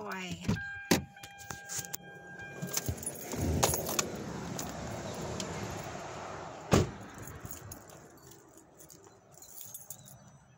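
Keys jangling and a car's warning chime as someone climbs out of a car, with handling and rustling noise, then a car door shutting with one sharp thump about seven seconds in.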